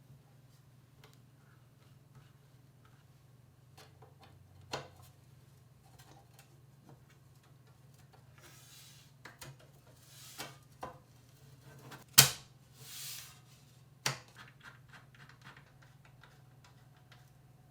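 Hands handling computer parts: scattered light clicks and taps, a few short rustling sweeps, and one sharp, louder click about twelve seconds in, over a faint steady low hum.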